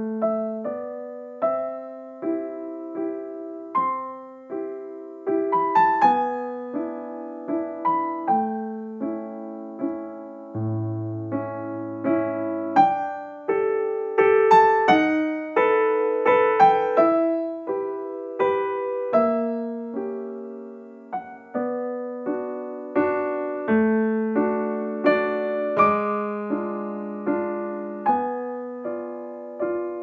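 Solo piano music: a slow, gentle melody of struck notes, each ringing and fading, over a few lower notes.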